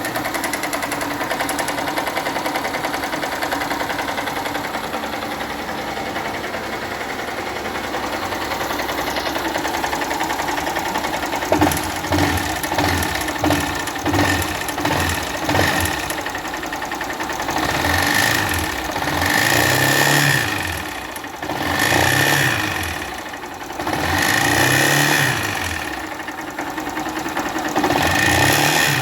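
Honda CG 160's single-cylinder four-stroke engine idling steadily, then blipped and revved up and down several times from about halfway through. It is running with an engine noise that the mechanic traces to a piston melted and a cylinder scuffed by lack of lubrication.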